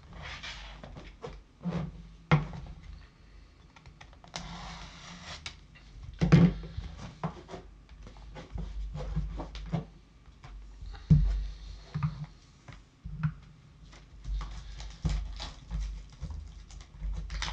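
Hands handling a Panini Flawless trading-card briefcase and the box inside it on a tabletop: irregular clicks, knocks and short rustling or sliding sounds. The two loudest knocks come about six seconds in and about eleven seconds in.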